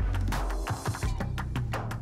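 Background music with a heavy bass line and a regular drum beat, with a brief hissing swell in the high end about half a second in.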